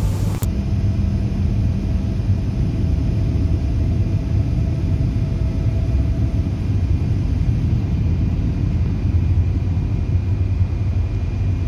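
High-speed passenger train running at speed, heard from inside the carriage: a steady low rumble, with a faint whine that fades out about two-thirds of the way through.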